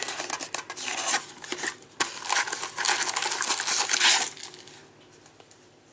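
Plastic trading-card packaging crinkling and tearing as it is handled and opened. It runs in rustling spurts and stops about four seconds in, leaving only faint room noise.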